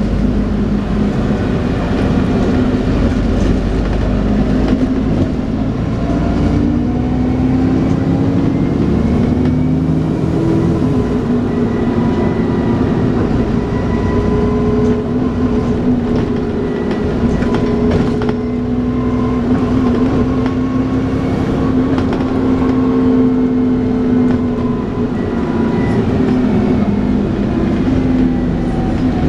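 Dennis Trident 2 double-decker bus under way: its drivetrain whine rises and falls through gear changes, then holds steady while cruising and drops near the end. The whine has the vacuum-cleaner-like 'hoovering' note.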